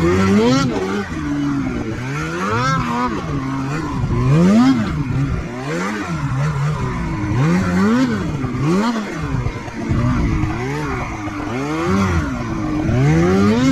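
Snowmobile engine revving up and down again and again as the throttle is worked, its pitch rising and falling about once every second or so.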